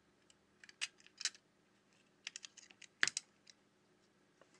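Small, sharp clicks and taps of metal pry tools and tweezers against the opened Samsung Galaxy A51's board, shields and connectors, in irregular clusters, the loudest about three seconds in.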